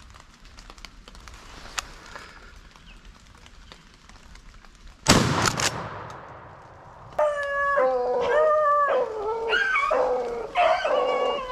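A loud shotgun shot about five seconds in, ringing out after the crack, fired at a rabbit the hounds are running. About two seconds later beagles start baying and howling in long drawn-out cries, pack hounds giving tongue on the rabbit's trail.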